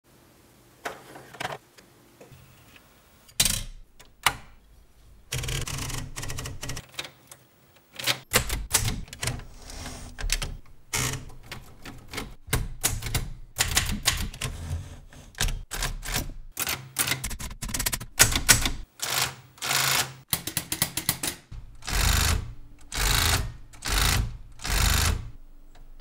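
Fully mechanical 1984 Silver Reed 500 manual typewriter being typed on: sharp metallic clacks of the type bars striking the paper, a few scattered strokes at first, then a fast, dense run of keystrokes from about a third of the way in, with heavier clattering bursts near the end.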